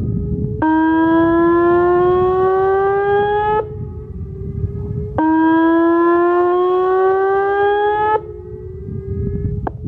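Whelen WPS-2810 electronic outdoor warning siren sounding a test signal. A loud horn-like tone climbs slowly in pitch for about three seconds, drops back and climbs again, twice, with a fainter tone held between the sweeps.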